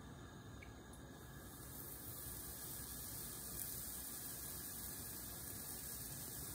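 Faint, steady hiss of pancake batter sizzling on a hot griddle, over a low hum; the hiss grows a little louder about a second and a half in as more batter is poured on.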